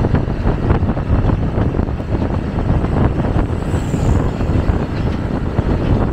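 Noise of a moving vehicle: a steady low rumble with wind buffeting the microphone.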